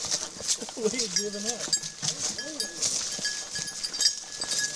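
Tracking dog whining in short rising-and-falling cries as it pulls along on the leash. Footsteps crunch and swish through brush, and a steady high insect drone runs underneath.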